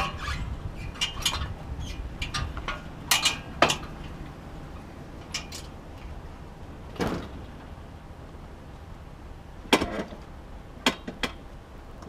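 Irregular clunks and clicks of a scooter being unstrapped and taken down from a carrier on the front of a motorhome, straps, hooks and metal parts knocking, over a low steady rumble.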